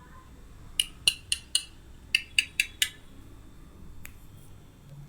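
Wooden toy capsicum held together with Velcro being cut with a toy knife: a run of short, sharp clicks and taps, four in quick succession, then five more, and a single one near the end.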